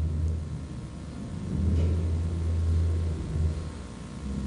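A low rumble with no speech. It swells about a second and a half in and fades again near the end.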